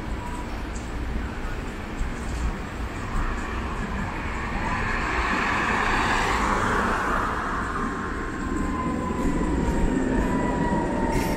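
Coupled Tatra KT4 trams rolling past on the street track, with a car driving by about halfway through. Over the second half a thin high whine from the tram slides slightly lower in pitch as it passes.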